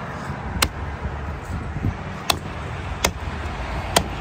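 Meat cleaver chopping through a large qattan (barbel): four sharp strikes at uneven intervals, over a low steady background rumble.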